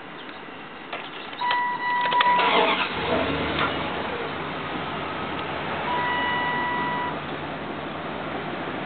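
2003 Dodge Ram 2500 pickup being started with the key, heard from inside the cab: a click, a steady dashboard warning chime, then the starter cranks briefly and the engine catches about three seconds in, starting readily and settling into a steady idle. The chime sounds again for about a second a few seconds later.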